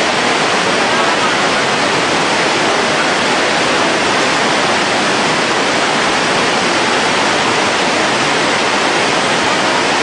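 Steady, loud rush of a river in flood, the even noise of fast-moving floodwater without a break.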